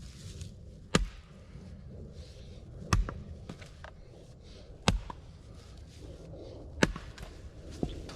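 Heavy axe striking wood, splitting sawn log sections: four hard chops about two seconds apart, then a lighter knock near the end.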